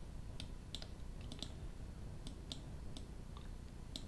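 Irregular clicking of a computer mouse, roughly two clicks a second and unevenly spaced, some in close pairs, over a faint steady low hum.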